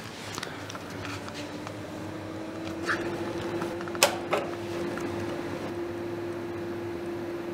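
Steady electrical hum from a custom-built switching power amplifier rig, one tone creeping slightly up in pitch over the first few seconds and then holding. About four seconds in a power switch clicks sharply, followed by a smaller click.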